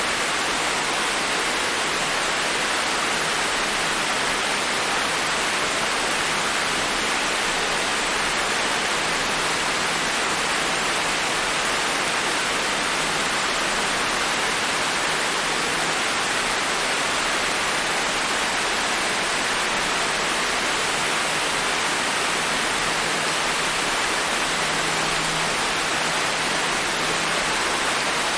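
Steady, gentle rain falling, an even hiss without separate drops standing out.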